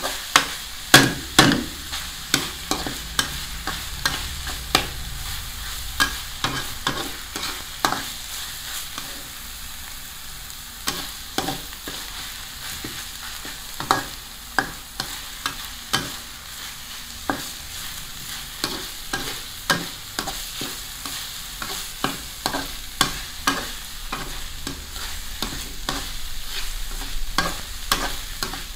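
Metal spatula scraping and clacking against a black wok as minced frog and chili paste are stir-fried, over a steady sizzle. The clacks come irregularly, sometimes several a second.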